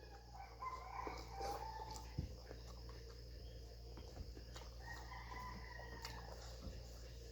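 Roosters crowing faintly, two long crows: one about a second in and another about five seconds in, over a low steady hum.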